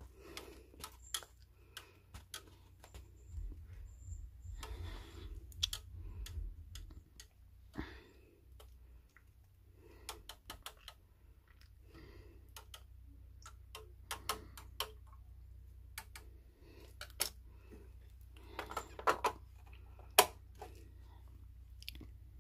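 Faint, irregular clicks and taps of a plastic stirring stick knocking against the sides of a small plastic tank as it stirs the water, with a few short scrapes and a louder click near the end.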